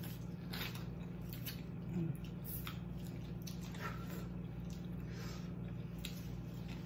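Wet, squishy bites and chewing as corn kernels are bitten off the cob close to the microphone, roughly one bite a second, over a steady low hum.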